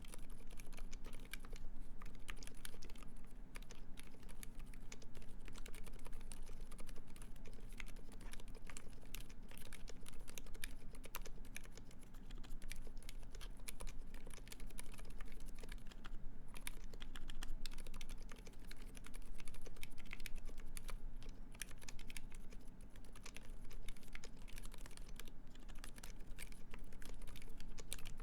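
Continuous typing on a Uni660 split mechanical keyboard with lubed Silent Alpaca silent linear switches, a brass plate and GMK keycaps. The keystrokes are quiet and fast and come in an irregular stream.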